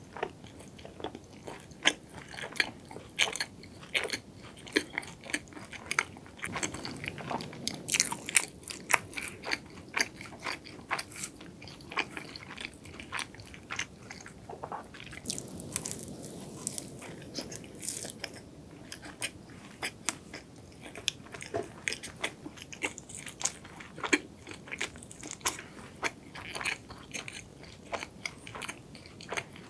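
Close-miked chewing of a cronut, a flaky croissant-doughnut pastry: a steady run of short crackly mouth clicks.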